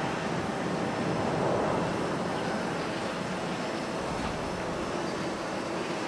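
Jet airliner engines running, a steady rushing noise with faint steady tones through it.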